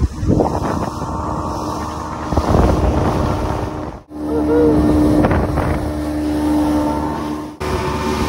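Evinrude 115 outboard motor pushing a small center console boat at speed: a steady engine hum with water rushing past the hull and wind buffeting the microphone. The sound drops out for an instant twice, about four seconds in and near the end.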